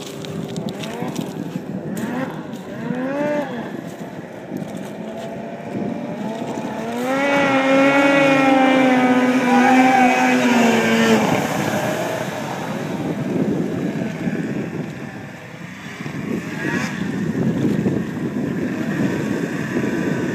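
Ski-Doo 440 snowmobile's two-stroke engine running hard as the sled skims across open water, its whine rising and falling with the throttle. It is loudest from about seven to eleven seconds in as it passes close, then drops to a rougher, noisier sound.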